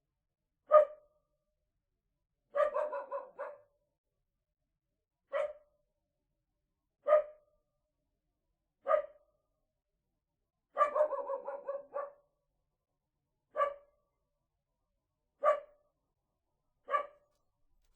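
Small dog barking: single sharp barks every two seconds or so, with two quick volleys of several barks in a row, one about three seconds in and one past the middle.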